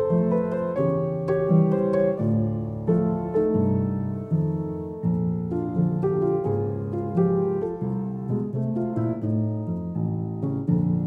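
Piano music: a steady stream of single struck notes and chords.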